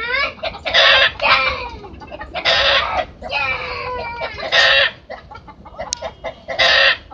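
Chickens and roosters clucking and squawking: a series of loud, harsh calls with short pauses between them.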